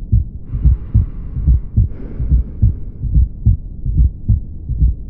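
Recorded heart sounds with an S4 atrial gallop: a steady rhythm of low thuds, an extra beat falling just before each S1. The S4 comes from the atrium pushing blood with difficulty into a stiff ventricle, as in left ventricular hypertrophy or aortic stenosis.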